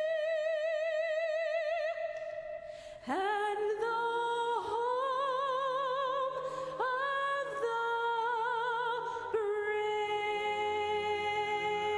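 Solo female voice singing through a microphone in long held notes with a wide vibrato: one note held for about two seconds, a short break, then a scoop up into a new phrase of several sustained notes a few seconds in, over a soft low sustained backing.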